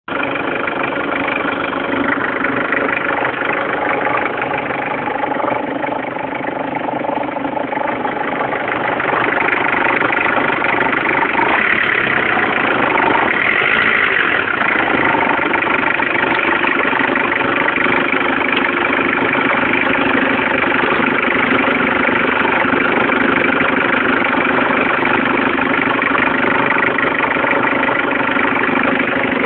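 Car engine idling steadily, its level rising slightly about eight seconds in and then holding.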